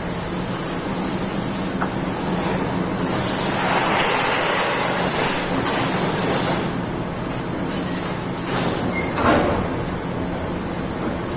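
Amada Pega 357 CNC turret punch press running: a steady low hum under a constant high hiss, swelling into a louder rush for a few seconds in the middle, with a few single knocks in the second half.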